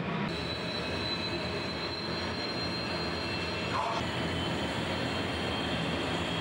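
Recorded aircraft-carrier flight-deck noise played through an exhibit's speakers: a steady jet-engine roar with a high, steady whine that comes in just after the start, as deck crew work a catapult launch.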